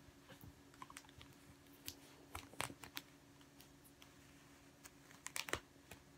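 Faint rustling and scattered small clicks of hands gathering and twisting a crinkled shibori obiage scarf, with a cluster of louder clicks about two and a half seconds in and again about five seconds in.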